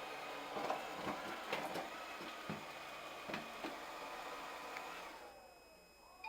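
LG Roboking Dual Eye 2.0 robot vacuum running with a steady motor whine and several knocks and clunks as it drives over a 15 mm door threshold. About five seconds in the motor winds down in a falling pitch.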